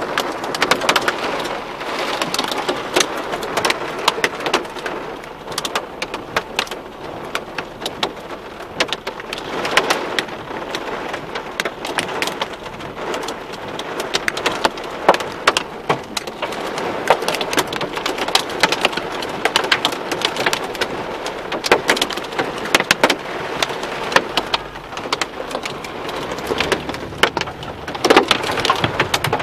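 Heavy downpour of rain mixed with hail, a dense steady hiss with many sharp ticks and clicks of hailstones striking hard surfaces.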